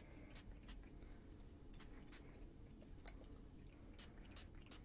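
Faint, scattered soft clicks and squishes from hands working styling product into wet hair.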